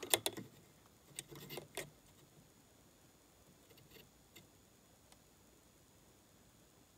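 A few light clicks and knocks of metal tools being handled, bunched in the first two seconds, then a few fainter ticks over quiet workshop room tone while the part is measured.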